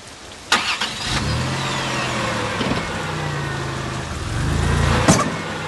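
Car engine started: a sharp click about half a second in, then the engine catches and runs steadily, swelling louder as it is revved near the end, with another sharp click about five seconds in.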